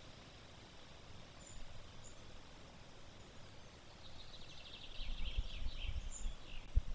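Quiet forest ambience with a few faint high bird chirps; about four seconds in, a rapid rattling trill of many quick high notes runs for roughly two and a half seconds. A low rumble comes in about five seconds in.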